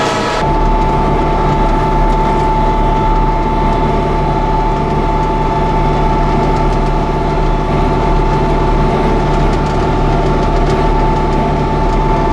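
Tractor engine running steadily while driving a Hesston 1265 swather off the 540 PTO during hay cutting, with a steady whine over the engine hum. The sound changes abruptly about half a second in.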